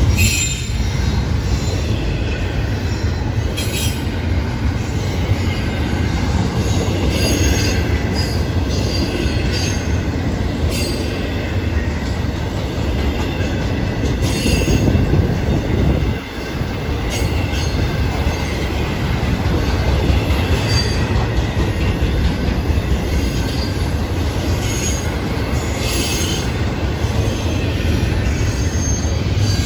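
A Florida East Coast Railway intermodal freight train's double-stack well cars rolling past at close range: a loud, steady rumble of steel wheels on rail, with high wheel squeals and clicks now and then and one brief dip in the noise about halfway through.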